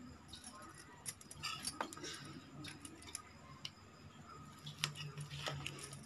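Faint, scattered light clinks and ticks of a spoon against a steel plate and of glass bangles jingling as hands work a crumbled mixture in the plate.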